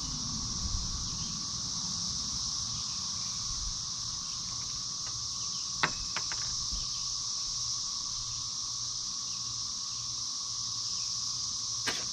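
Steady, high-pitched chorus of insects. A pair of sharp knocks comes about six seconds in and another near the end, from work on the wooden coop frame.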